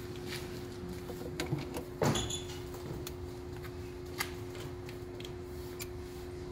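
Jump-starter clamps and cables being handled and clipped onto the fire truck's batteries: a few sharp clicks and clacks, the loudest about two seconds in, over a steady hum.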